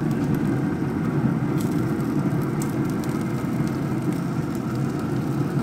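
A steady low rumbling noise without any clear pitch or rhythm, starting and stopping abruptly.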